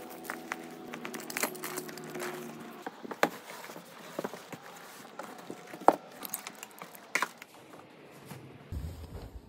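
Handling noises from baby toys and board books being tidied away: plastic rings clacking, rustling, and a series of sharp clicks and knocks. A steady hum with several tones runs underneath and stops about three seconds in.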